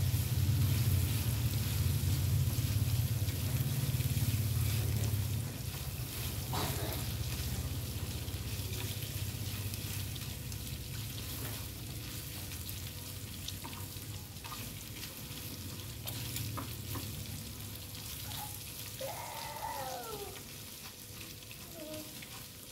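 Pork belly sizzling as it dry-fries in a small pan on a gas stove, stirred with chopsticks that click against the pan now and then. A low rumble underneath is strong at first and drops away about five seconds in.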